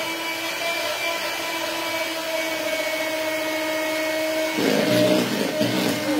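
Handheld electric mixer running steadily, its beaters whipping egg whites into meringue. About four and a half seconds in the sound turns louder and rougher.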